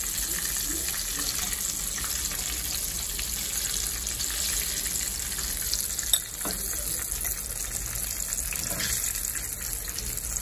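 Oil sizzling steadily as flour-dredged chicken pieces shallow-fry in a skillet, with a sharp tap of a fork against a glass bowl about six seconds in as fried pieces are moved out.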